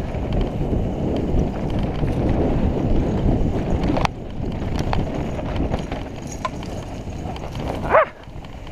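Mountain bike rolling fast down a dirt singletrack: tyres running on dirt and the bike rattling over the rough trail, with a sharp click about four seconds in. Near the end comes a short squeal that rises and falls.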